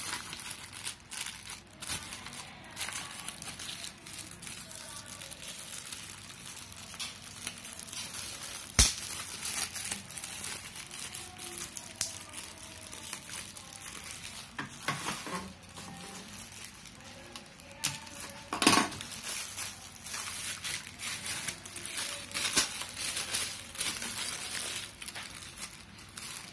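Clear polythene wrapping crinkling and rustling as hands pull it off a circuit board, with irregular crackles throughout. A sharp click comes about nine seconds in, and a few louder snaps of the plastic follow near nineteen seconds.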